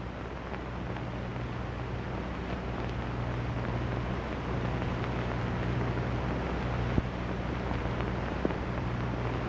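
Steady hiss and low hum of an old film soundtrack, growing slightly louder, with two faint clicks of crackle about seven and eight and a half seconds in.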